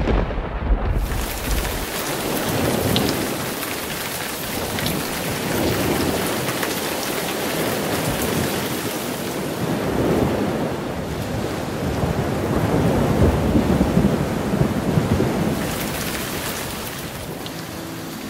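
Heavy rain falling on a car, heard from inside, with low rolling thunder that swells and fades several times, loudest right at the start and again about three-quarters of the way through.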